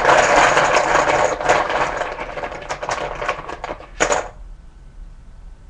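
Poker chips clattering in a bucket as it is shaken to mix them: dense rapid clicking that dies down after about three seconds, then one short rattle about four seconds in.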